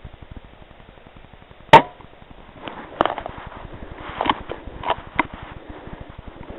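A single rifle shot, one sharp crack about two seconds in, followed by a few lighter clicks and knocks over the next few seconds.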